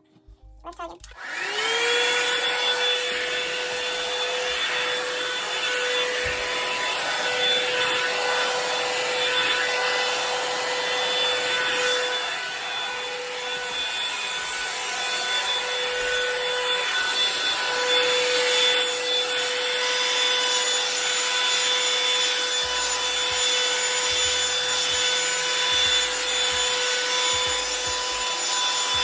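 Revlon hair dryer brush switched on about a second in, its motor rising in pitch to a steady whine over the rush of blown air, then running steadily.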